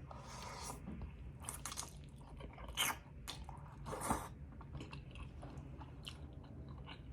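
A person chewing food close to the microphone, with a few short, louder wet mouth sounds spread through the chewing.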